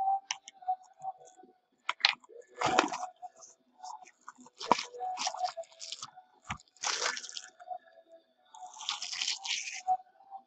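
Packaging of a trading-card hobby box being torn and crinkled open, in a series of irregular crackling bursts several seconds apart.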